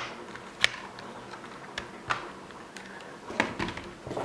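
Small plastic toy-plane parts being handled and fitted together: a few separate sharp clicks and light knocks.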